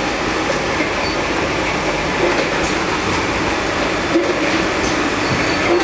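Stainless-steel slat-chain bottle conveyor running with a steady, continuous rattle, with one louder click about four seconds in.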